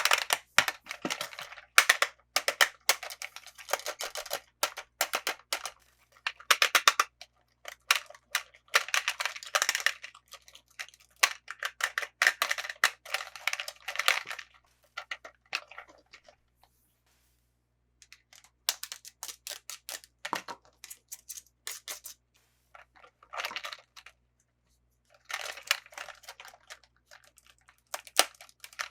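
Toy packaging being handled and opened: crinkling plastic and card with rapid clicks and tearing, in dense runs, with a pause of about two seconds just past the middle.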